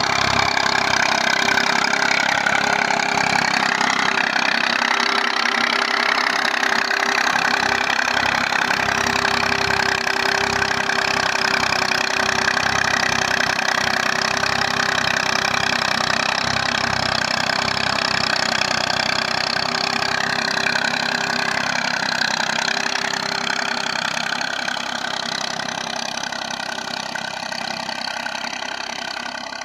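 Massey Ferguson tractor's diesel engine running steadily while it pulls an eleven-tine cultivator through dry soil. It grows fainter over the last few seconds.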